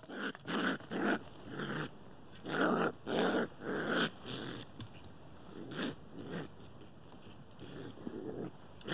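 Raccoon growling in a run of short, harsh bursts, a cornered, uncooperative animal on the defensive. The bursts come thick for about four seconds, then thin out to a few more.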